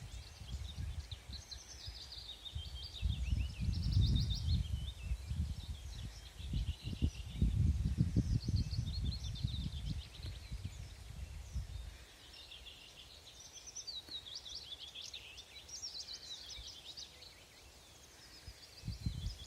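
Small songbirds chirping and twittering over and over in quick high trills. Under them an uneven low rumble comes and goes, heaviest in the first half and dying away after about twelve seconds.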